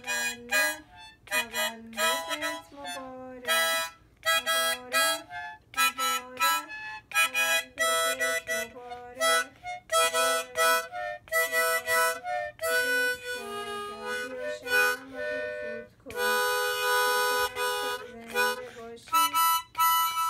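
Small harmonica played by a child: a run of short notes at changing pitches with brief gaps between them, and one longer held chord about three-quarters of the way through.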